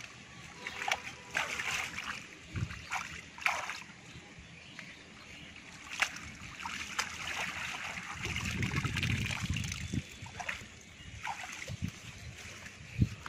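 Shallow water splashing and sloshing as a bamboo fish trap is dragged and lifted out of it, with scattered knocks and scrapes of the bamboo slats.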